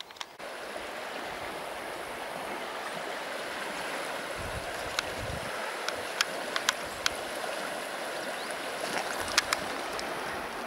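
Taiga river water rushing steadily, with a few sharp clicks scattered through it and a brief low rumble around four to five seconds in.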